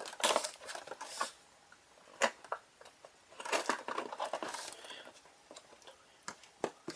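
Hands handling a taped cardboard toy box and its packaging: bouts of rustling and scraping with scattered sharp clicks and taps.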